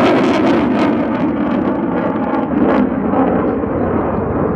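F-35A's Pratt & Whitney F135 turbofan in full afterburner, a loud deep roar with crackle, as the jet climbs steeply away. The crackle thins out and the sound dulls about three seconds in.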